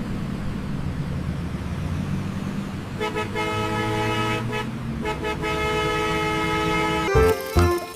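A vehicle engine running with a low rumble, then a horn sounding several notes at once in two long blasts, the second starting about five seconds in.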